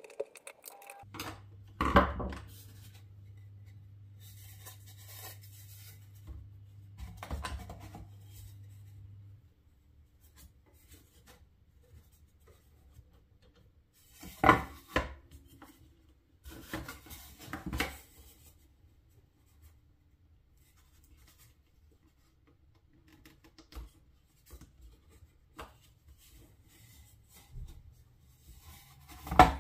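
Wooden parts being handled during assembly: a few sharp knocks of wood set down or struck, spread out with long gaps, with quiet rubbing and scraping between them.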